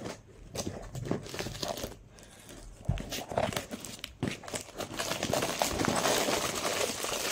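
Hands tearing open a cardboard parcel box: scattered short rips and knocks of cardboard, then from about five seconds in a continuous crinkling of the packaging.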